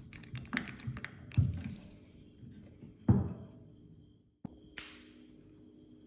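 Screwdriver clicking and tapping against a Fender Stratocaster's metal string tree and its screw, with a few knocks, over the first three seconds. After a brief drop a little past four seconds, a faint steady hum.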